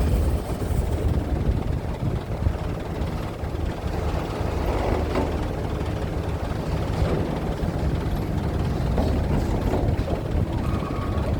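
Steady low rumble of heavy engines running, with a few faint knocks.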